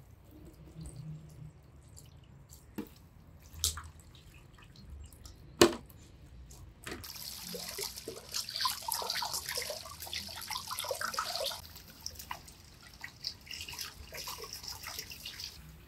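A few sharp knocks, then water running and splashing, as when something is rinsed in a basin or under a tap; the splashing is strongest for about four seconds and then goes on more lightly.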